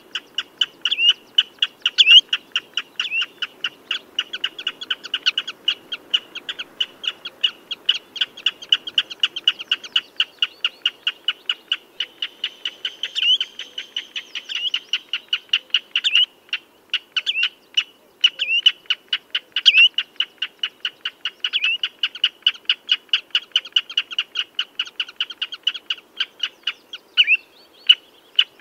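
Common redshank calling: a rapid, unbroken series of short, high piping notes, several a second, some louder notes standing out.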